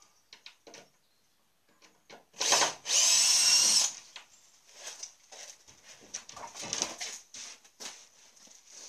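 Cordless drill-driver unscrewing the fixings of a plywood shipping crate: a short loud burst about two and a half seconds in, then a steady motor whine for about a second. Scattered knocks and handling clatter against the wooden panel follow.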